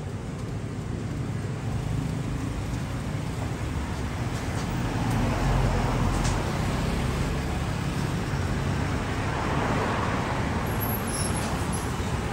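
Road traffic: cars passing close by on a street, the tyre and engine noise swelling as one goes by about five seconds in and again near the end.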